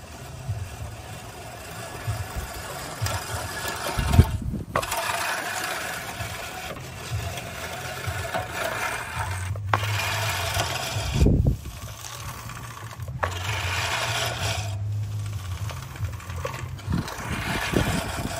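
Scotts 16-inch push reel mower cutting grass: the spinning reel gives a steady rattling whir as it is pushed. It breaks off briefly a few times, with a couple of low thumps.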